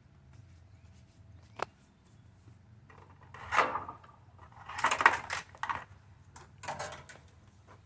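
Handling noises while topping up and checking the engine oil: a sharp click about one and a half seconds in, then three bursts of rustling and scraping, over a faint low steady hum.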